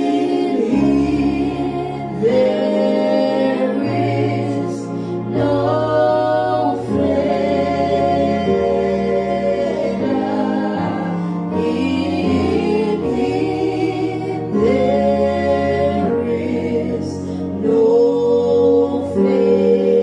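Gospel music: a choir singing held, slowly changing chords over sustained low notes.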